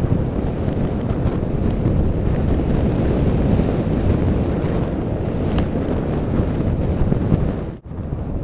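Wind buffeting the microphone of a mountain bike's on-board camera at speed, mixed with the rumble and rattle of the bike rolling over a dirt trail. The sound cuts out briefly near the end.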